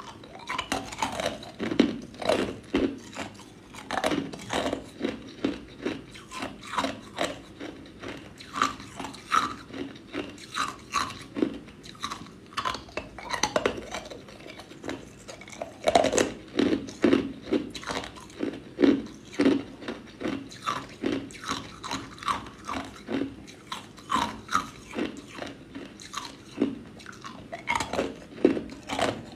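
Clear ice cubes crunched and chewed between the teeth: a steady run of sharp, crisp crunches, about two a second.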